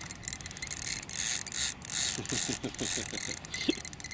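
Carp spinning reel's drag clicking as a hard-running fish pulls line off the spool, with a quick run of short rising squeaks about two seconds in.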